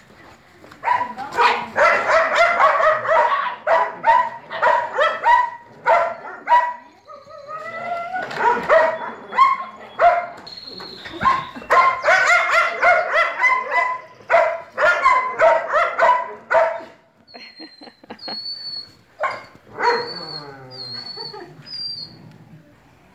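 Several young Belgian Malinois puppies barking and yipping in rapid runs, broken by short pauses. The barking thins out near the end.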